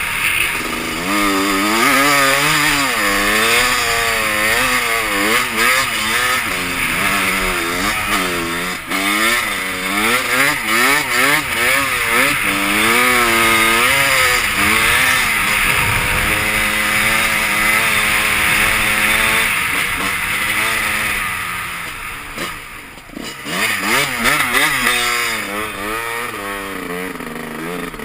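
Two-stroke dirt bike engine being ridden hard, its pitch rising and falling over and over as the throttle is opened and closed. About three quarters of the way through it drops off briefly, then climbs again.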